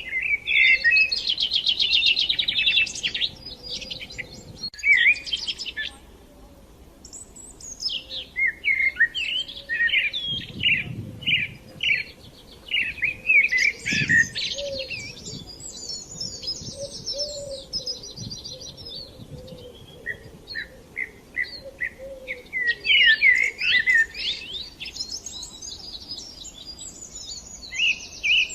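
Songbirds singing: quick chirps and fast trills in bursts, with brief pauses between phrases.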